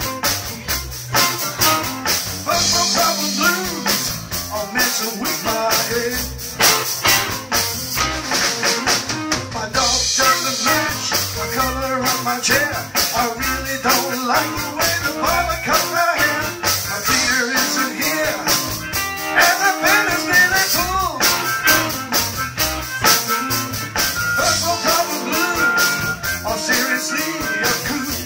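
Live blues band playing: harmonica blown into the vocal microphones leads over electric bass, electric guitar and a drum kit keeping a steady beat.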